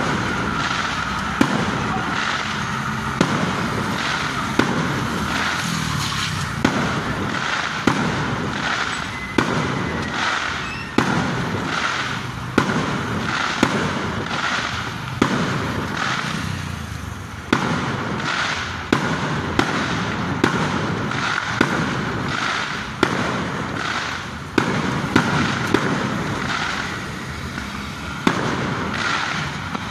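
Fireworks going off in a continuous barrage: sharp bangs every second or two over constant crackling.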